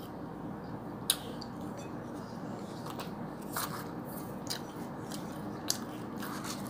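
A person chewing a mouthful of instant noodles, with a few scattered soft clicks and smacks over a steady low background hiss.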